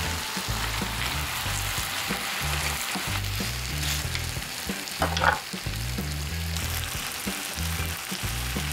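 Marinated beef short ribs sizzling steadily on an electric grill pan while metal tongs scrape and turn the pieces, with a brief louder clatter about five seconds in.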